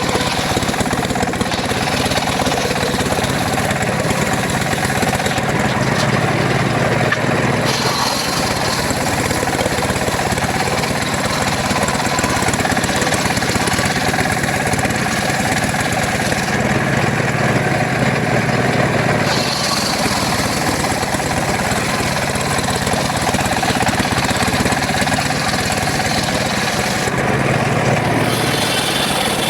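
Engine-driven mobile circular sawmill running continuously while sawing mahogany. About every ten seconds its sound shifts lower for two to three seconds.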